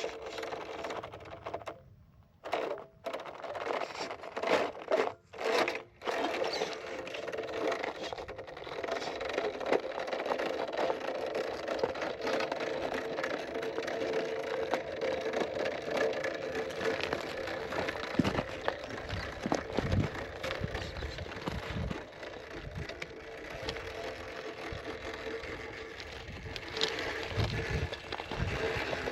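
Electric motor and geared drivetrain of a 1/10-scale RC rock crawler whining under throttle, stopping and starting a few times at first and then running steadily, with tyres scraping and knocking on rock in the later part.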